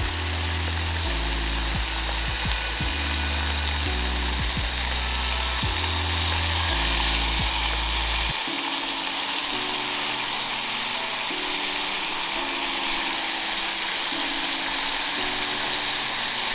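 Background music of held notes changing about once a second, its bass dropping out about halfway through, over a steady hiss.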